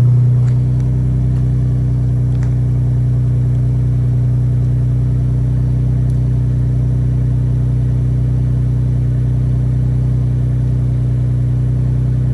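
2021 Ford Bronco's 2.7 L twin-turbo V6 with a muffler delete, idling steadily after a cold start. Its note eases down slightly at the start, then holds even.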